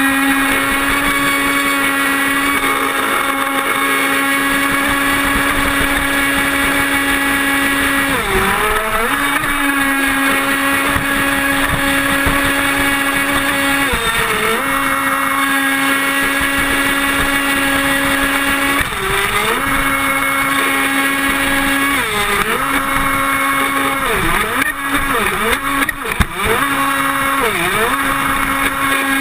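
Pro Boat radio-controlled boat running at speed, its motor giving a steady high whine over the hiss of spray and water rushing past the hull. Several times the pitch briefly drops and climbs back, more often near the end.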